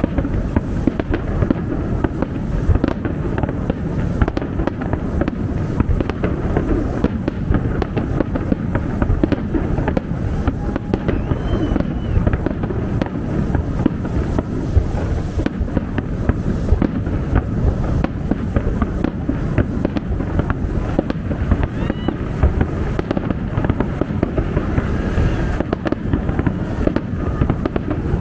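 Fireworks show: a dense, unbroken barrage of booms and crackling bursts.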